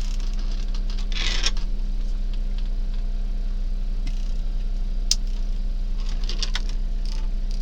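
A steady low electrical hum, with a short scrape about a second in and a few faint sharp ticks later on: the hand graver working the coin's metal.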